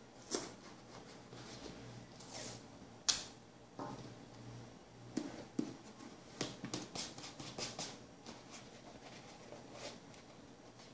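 Paper rustling and crinkling as hands fold and press it over the rim of a cardboard cylinder, with several sharp clicks among the rustles.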